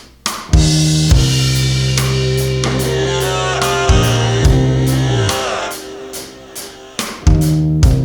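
Background music: a rock-style track with drum kit, bass and guitar, with a steady beat.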